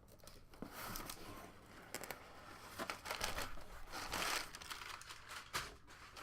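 Packaging being unwrapped by hand: crinkling and tearing in irregular rustling bursts with a few small clicks, as a gift box is opened and its contents pulled out.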